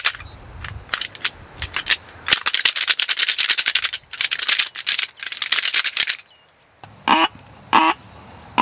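Rapid, loud clattering rattle for about six seconds as a deer grunt call with a ribbed, corrugated tube is worked in the hands, then two short grunt notes blown on the call near the end.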